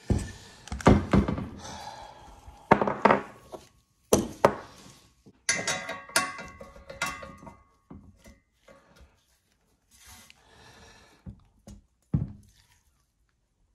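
Metal hand tools and a rusty exhaust pipe with its wastegate knocking and clinking against a wooden workbench while a socket wrench works the flange nuts. A string of sharp thunks, some with a short metallic ring, thins out after about seven seconds, with one last knock near the end.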